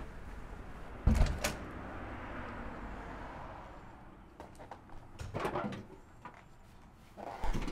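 A wooden front door being knocked on and handled: two heavy thumps about a second in, a run of lighter knocks and clicks midway, and another thump near the end.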